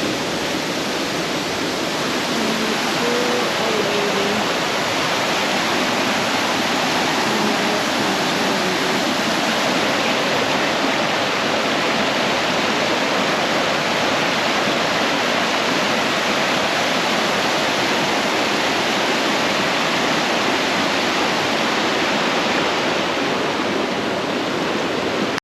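Waterfall rushing, a loud steady roar of falling water that cuts off suddenly at the end.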